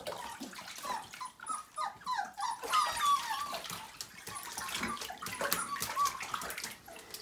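Several Siberian husky puppies whining and whimpering together in many short, high, wavering cries while they stand wet in a bathtub, with scattered knocks and splashing from the tub.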